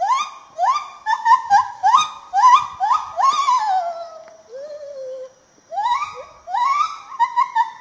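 Lar (white-handed) gibbon calling: a series of rising whooping notes that come faster and climb higher to a peak about three seconds in and end in a falling note, then a lower wavering note, then the rising whoops start again.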